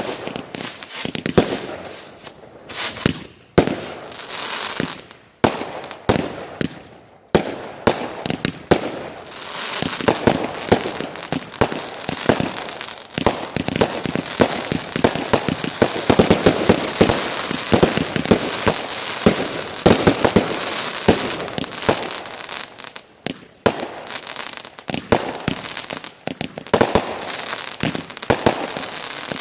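Fireworks going off: separate bangs and crackling at first, then a dense, rapid barrage of bangs and crackle lasting about a dozen seconds. After a brief lull near the end, more bangs follow.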